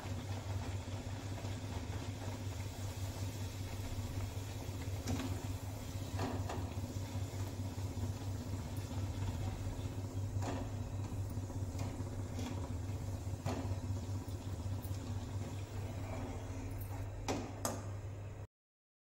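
Palak puris deep-frying in a metal kadhai of hot oil, a steady sizzle over a low hum, with a spatula clinking against the kadhai about seven times as the puris are turned and lifted out. The sound cuts off abruptly near the end.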